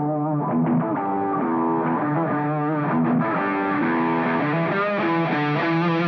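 Background rock music: a guitar plays a riff of picked notes that grows gradually brighter.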